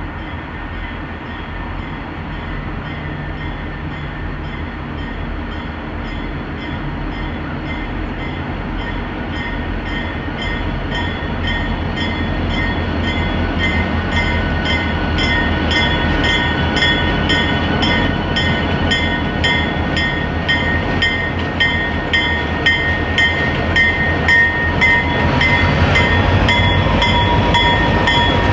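CSX diesel freight locomotives approach and come alongside, their engines running with a steady rumble that grows louder throughout. A high whine sits over the rumble, and from about halfway a rhythmic clicking of wheels on the track grows quicker and louder.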